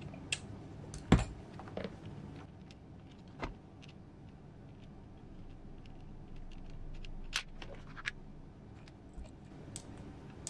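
Scattered light clicks and metal taps of a small screw and hand tools being handled, with one louder knock about a second in.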